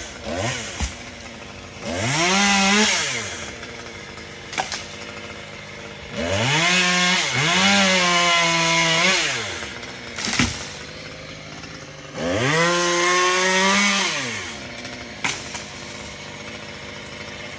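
Two-stroke chainsaw revved to full speed in three long bursts, its pitch rising at the start of each and falling back to idle between, as in cutting willow timber. A few sharp knocks come between the bursts.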